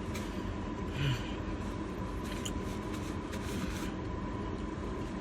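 Steady low hum of air conditioning, with faint eating sounds and one short low sound about a second in.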